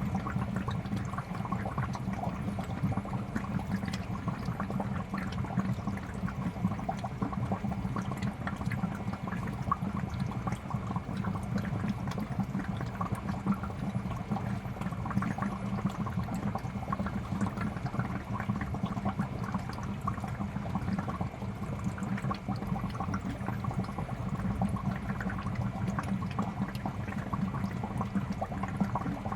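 Aquarium air bubbler running steadily: a constant stream of bubbles gurgling and popping at the water surface, over a low hum.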